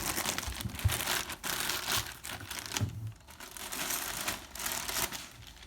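Packaging crinkling and rustling in irregular spurts, with a few soft knocks, as a new orbital sander is unwrapped and handled.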